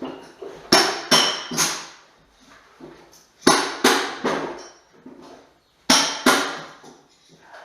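Hammer blows struck in quick groups of three, three and then two, each blow ringing briefly.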